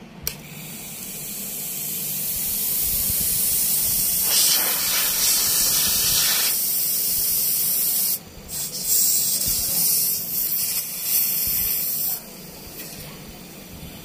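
R600 refrigerant gas hissing out of a refrigerator's copper line under pressure. The hiss swells over the first few seconds and holds steady, breaks off briefly about eight seconds in, returns unevenly, and cuts off about twelve seconds in.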